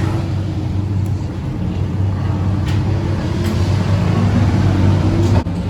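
A car engine runs steadily at a constant pitch, then cuts off abruptly near the end.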